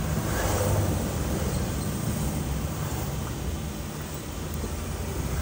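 Engine hum and tyre noise heard inside the cabin of a car driving steadily along a road.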